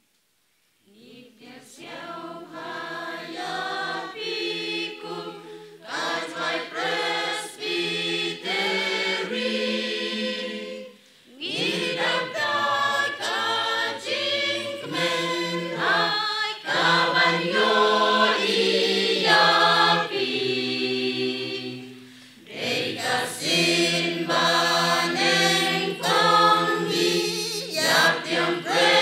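Church choir of women and men singing a Khasi gospel welcome song together, starting about a second in, with short breaks between phrases at about eleven and twenty-two seconds in.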